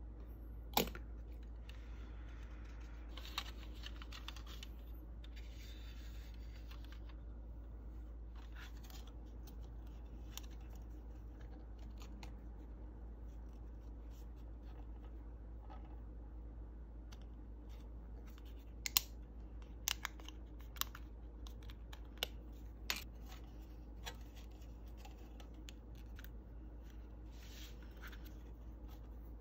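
Hands handling a plastic model car body shell and a paper template: scratchy rubbing of paper and plastic in the first seven seconds, then a quick string of sharp plastic clicks and taps a little past the middle.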